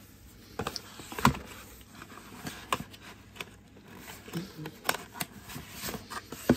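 Cosmetic packaging handled by hand: an irregular series of sharp taps and clicks with light rustling, the loudest about a second in.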